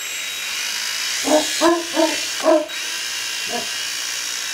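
Small toy quadcopter's brushed motors and propellers whirring in flight, a steady high-pitched whine that cuts in sharply at the start. Over it a dog barks four times in quick succession in the middle, then once more.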